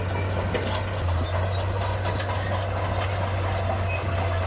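Heavy diesel engine of earthmoving machinery running at a steady, even pitch, with scattered light metallic clinks and squeaks over it.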